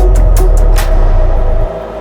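Electronic background music with a heavy bass line and a drum beat. The drum hits stop a little under a second in, and the bass cuts off abruptly about 1.7 s in, leaving a quieter fading tail.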